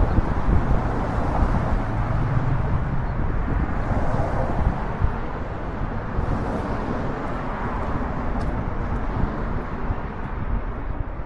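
Street traffic: cars driving past close by, a steady rush of tyre and engine noise with a low rumble.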